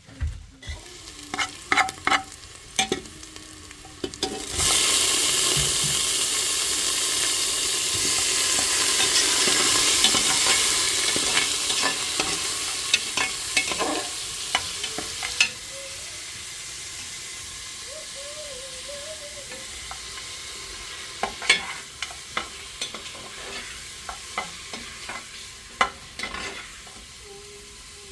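Food sizzling on a hot cooking surface over a fire: a loud hiss starts suddenly about four seconds in, holds for about eleven seconds, then drops off sharply. Scattered clicks and knocks of handling sound before and after it.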